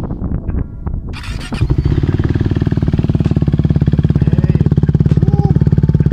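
KTM Duke 390's single-cylinder engine starts up about a second and a half in, then idles steadily with a fast, even exhaust pulse. It is loud, running through its muffler with the dB-killer insert removed.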